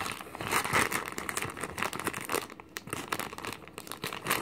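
Packaging being crinkled and torn as items are unwrapped from a subscription box, an irregular run of crackling rustles.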